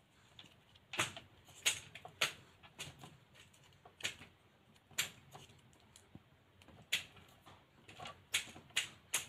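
Scattered sharp clicks and taps of hands handling wires and a ceiling rose fitting, with a quicker run of clicks near the end.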